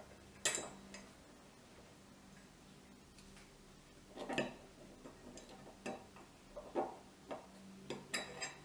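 Small steel gun parts clicking and tapping: a punch and the firing pin working against the SIG Sauer P226 slide as the firing pin is pushed in while the firing pin block is held down. A sharp click about half a second in is the loudest, with a cluster of clicks around four seconds in and several lighter ones near the end.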